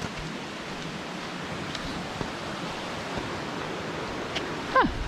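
Steady rushing noise of flowing creek water. Near the end, a short falling voice sound.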